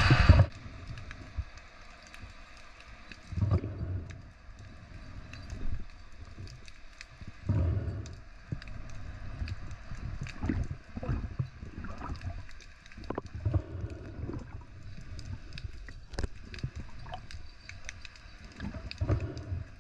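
Underwater sound heard through an action camera's housing as a freediver moves and handles a speared fish. Faint, irregular low whooshes and gurgles come every couple of seconds, with scattered small clicks over a steady hiss.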